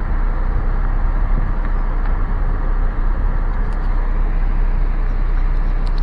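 Steady driving noise heard inside a moving car: a low rumble with an even hiss.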